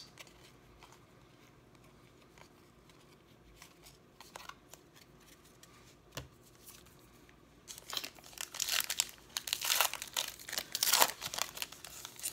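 A foil wrapper of a 2019 Parkside lacrosse trading card pack crinkling and tearing as it is ripped open, starting about eight seconds in after a quiet stretch with a few faint clicks of cards being handled.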